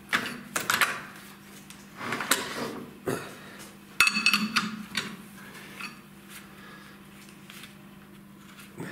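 A steel spanner clanking and knocking on the clamping nut and arbor of a gear-hobbing machine as the gear stack's nut is worked loose, with a short metallic ring on the loudest knock about four seconds in. A faint steady hum lies underneath.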